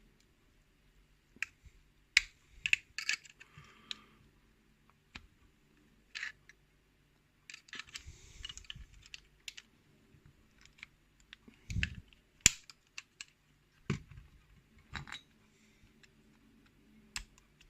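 Irregular small metal clicks, taps and scrapes of hand tools working on a pin-tumbler lock cylinder as it is taken apart, prying at a tough circlip. The clicks come in scattered clusters, with short scraping about two to four seconds in and again around eight seconds in.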